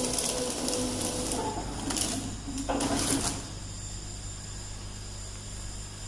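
YX-PF70 vertical powder and granule bagging machine running: a steady motor hum, with a louder whirring stretch over the first second and a half and two shorter bursts of mechanical noise around two and three seconds in, then only the hum.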